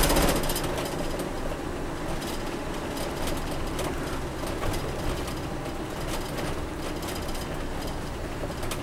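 Motorhome's engine and road noise heard from inside the cab while driving slowly: a steady hum with faint irregular clicks.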